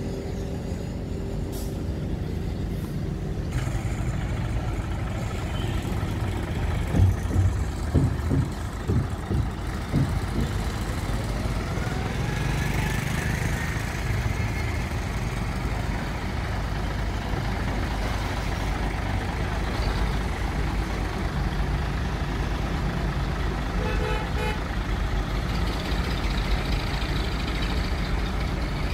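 Hino FG8J dump truck's diesel engine running steadily while the tipper body is brought down, with a few knocks about seven to ten seconds in and a rising whine around twelve seconds in.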